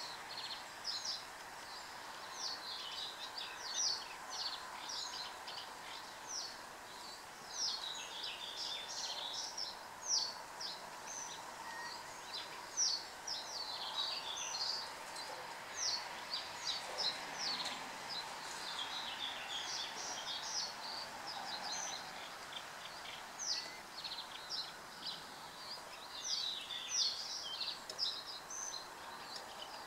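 Birds calling continuously, a dense run of short, high-pitched notes that sweep downward, over a faint steady background hum.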